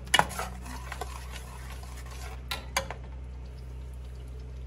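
Metal spoon stirring thick mashed beans in a stainless steel pot, clinking against the pot a few times just after the start and twice more about two and a half seconds in. A steady low hum runs underneath.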